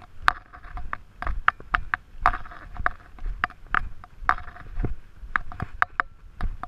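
Footsteps of a hiker walking on a dry, dusty dirt-and-rock trail: a steady rhythm of about two steps a second, each a sharp crunch or click with scuffing in between.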